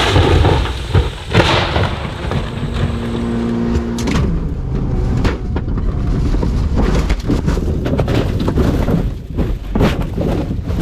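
Mini Cooper crashing off a dirt jump: a loud rush of impact and flying dirt, and a second hard hit about a second and a half in. About four seconds in comes a sharp bang, followed by rattling and rumbling inside the car.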